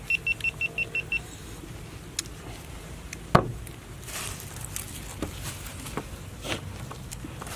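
A quick run of about seven short, high electronic beeps, roughly six a second. A sharp click follows, then soft scattered clicks and rustles as fingers pull at grilled fish on a leaf.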